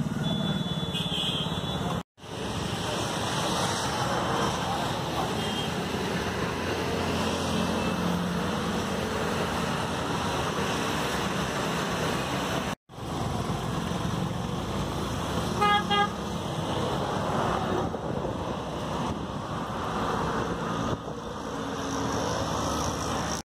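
Busy road traffic of motorcycles, scooters and cars passing as a steady noise, with a brief horn toot about two-thirds of the way through. The sound cuts out for an instant twice.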